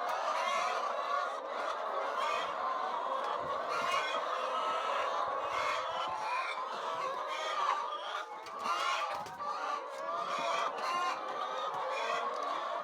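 A flock of chickens clucking and calling continuously, many birds' voices overlapping.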